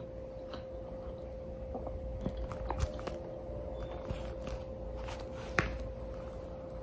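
A plastic convenience-store food container handled in the hand: a few sharp clicks and crackles, the loudest near the end, over a steady faint hum.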